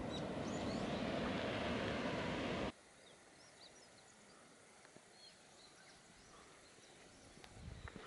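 Steady rushing outdoor noise that cuts off abruptly about two and a half seconds in, leaving quiet ambience with faint, scattered songbird chirps.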